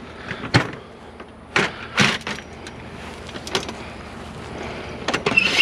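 Metal ironing board frame knocking and rattling as it is turned over and its legs are folded: a few separate clanks, then a louder burst of clattering near the end.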